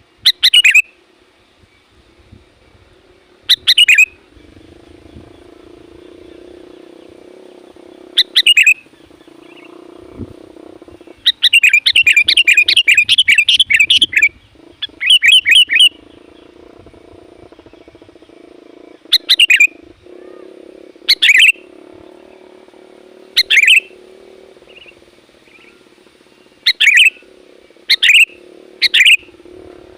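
Sooty-headed bulbul (kutilang) calling loudly, with short phrases every few seconds and a run of rapid chattering notes midway. A faint steady low hum sits underneath.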